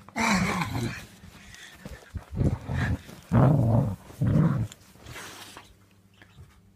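Dog growling in about six short bursts as it bites at a blanket.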